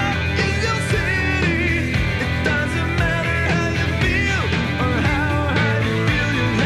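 Live rock band playing, with a male lead singer singing over electric guitar, bass and drums.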